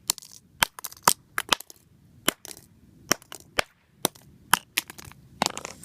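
A fidget spinner being knocked and pried at to force a part out: about fifteen sharp, irregular clicks and knocks.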